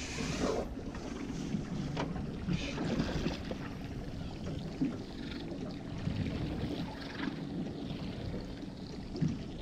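Steady wind and water noise around a small fishing boat, with a few light knocks.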